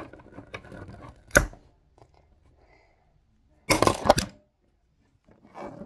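Hard plastic toy figures and playset pieces being handled and knocked together, and the phone camera bumped: a sharp knock a little over a second in, small scattered clicks, and a quick burst of clattering clacks near four seconds.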